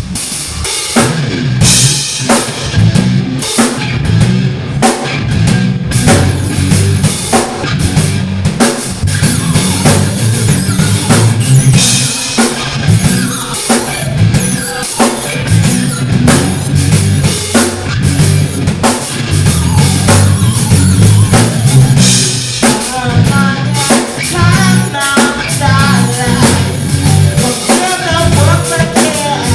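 Rock band playing live, driven by a drum kit with steady bass drum and snare hits under the full band.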